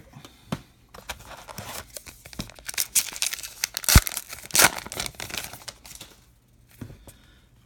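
Wrapper of a 2019 Topps Allen & Ginter baseball card pack being torn open and crinkled by hand, a run of crackling with the loudest rip about four seconds in.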